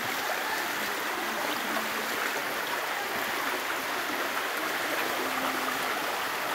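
Shallow rocky hill stream running over stones: a steady, even water sound.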